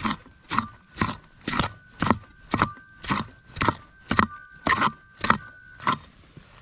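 A shovel digging into the ground for a deep metal-detector target, with even strokes about two a second that stop near the end.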